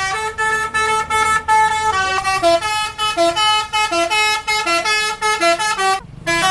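A bus's telolet horn, a multi-tone horn, playing a quick tune of stepped notes. It breaks off briefly about six seconds in.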